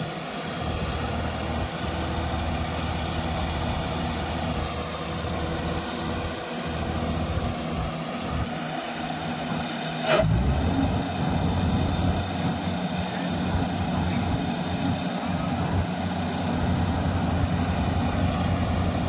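Combine harvester running steadily with an even machinery hum. About ten seconds in there is a sharp click, after which the low engine sound grows louder.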